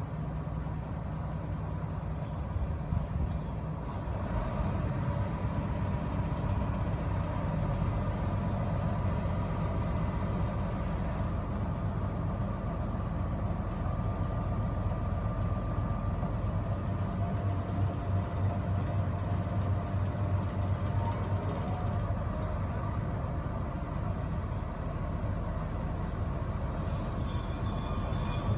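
Narrow-gauge diesel locomotive DH5 running steadily as it hauls its train away from the station, a continuous low engine sound.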